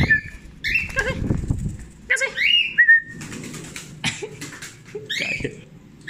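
Young cockatiel giving a string of short, chirping whistle calls that glide up and down in pitch. Wings flap in the first second or two as it lands on a hand.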